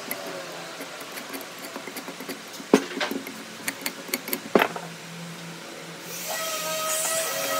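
A wooden block and a marking gauge handled at a workbench: a few sharp knocks of wood and tool, the loudest about three and four and a half seconds in. About six seconds in, a steady whining hum starts and grows louder.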